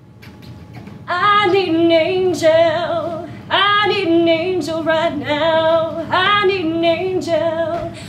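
A woman singing, starting about a second in, in phrases of held notes with short breaks between them.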